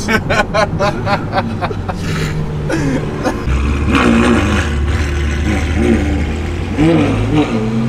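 Ferrari 812 Superfast's V12 through a straight-piped Novitec exhaust, first in a rapid string of short blips and then, from about halfway, a steady low drone with traffic around it.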